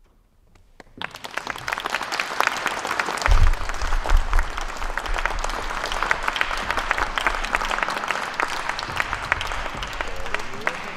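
Audience applause breaks out about a second in and carries on steadily, with some low rumbling a few seconds in.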